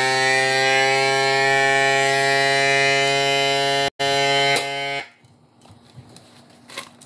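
FoodSaver vacuum sealer's pump running with a steady, loud hum as it draws the air out of a bag of snapper fillets. The hum breaks off briefly just before four seconds in and stops about five seconds in, leaving faint clicks and handling.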